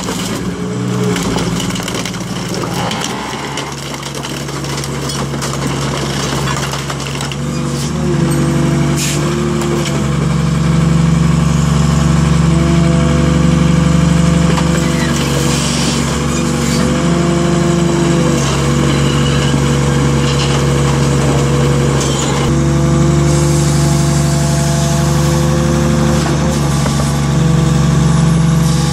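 Diesel engine and hydraulics of a car baler running hard under load as a car body is pressed flat, a steady machine drone that grows louder about three seconds in and again about eight to ten seconds in, with a few knocks of crumpling metal early on.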